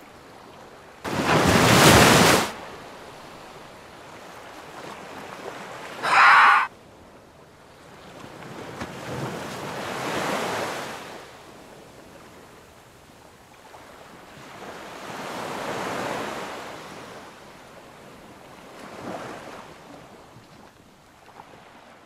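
Ocean waves washing in slow, gentle swells. A loud rush of noise comes about a second in, and a shorter, sharper burst around six seconds.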